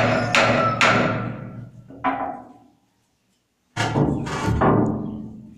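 Hammer blows, about two a second, each ringing briefly; they break off for about a second midway, then two more come.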